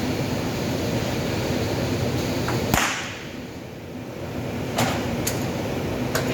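A single sharp crack about three seconds in, then a few lighter snaps and clicks, over a steady rumbling workshop hum; the crack fits a stud welder firing a stud onto sheet-metal panel doors.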